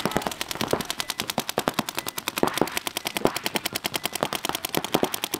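Paintball markers firing rapidly, several at once, in a dense unbroken stream of sharp pops, many shots a second.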